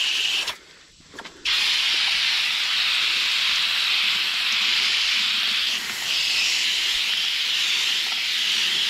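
Garden hose spray nozzle jetting water onto the aluminium fins of a Lennox heat pump's outdoor condenser coil, rinsing the coil clean with a steady hiss of spray. The spray cuts out for about a second near the start, then runs on steadily.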